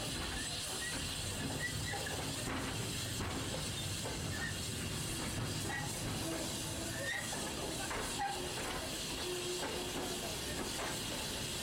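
Small tank steam locomotive at work, with a steady hiss of steam over the low rumble of the train running on the rails.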